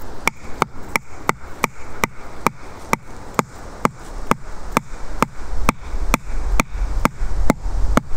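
A wooden stick used as a mallet hammering a peg into the woodland floor: a steady run of about twenty sharp knocks, roughly two and a half a second.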